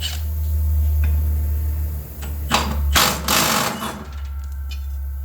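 Impact wrench rattling as it works the 15/16-inch nut off a riding mower's deck spindle pulley, loudest in bursts around the middle, over a steady low hum.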